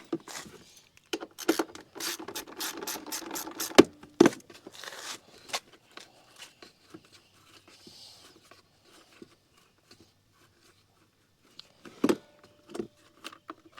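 Socket ratchet clicking as it backs out the 10mm bolts holding a scooter's seat bucket: a quick run of clicks about a second in, lasting a couple of seconds, then scattered faint ticks and scrapes, and a few more clicks near the end.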